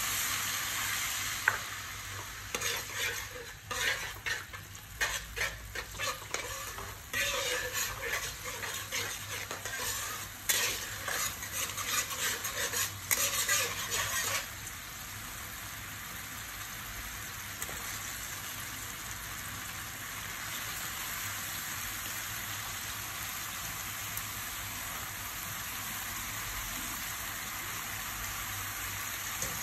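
A metal spatula stirring and scraping in a wok of garlic, oil and water, with irregular knocks against the pan for about twelve seconds. The stirring stops about halfway through, leaving a steady sizzle from the hot wok.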